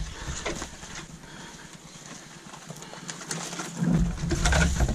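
Footsteps and hard breathing of a man carrying a canoe overturned on his shoulders up a rough portage trail, with scattered small knocks; the breathing and low rumble are strongest near the end.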